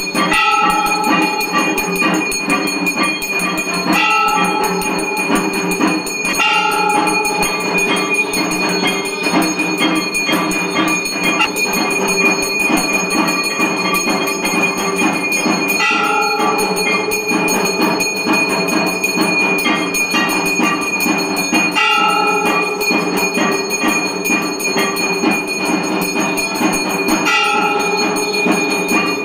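Brass hand bell rung continuously for the aarti: a fast, unbroken jangle of strikes with a steady ring. A louder, deeper bell stroke sounds every few seconds.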